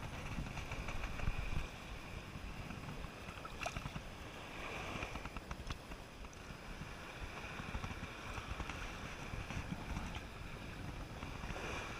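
Wind rumbling on the microphone over the wash of surf on the beach, with a few faint clicks.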